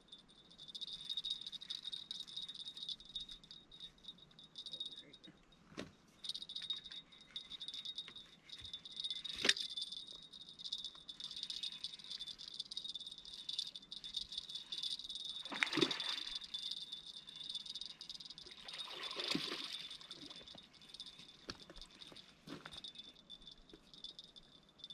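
A steady, high-pitched, rattling night chorus of calling animals, with a few sharp clicks and knocks, and two louder scuffing sounds past the middle.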